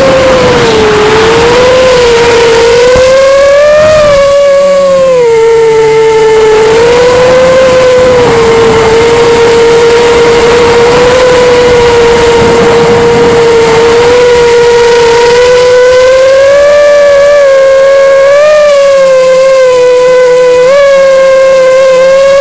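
A 5-inch FPV quadcopter's brushless motors and propellers whining loudly, the pitch rising and falling with the throttle. It climbs about four seconds in, drops a second later, holds steady, and climbs again near the end before cutting off suddenly. Wind noise on the onboard camera's microphone sits underneath.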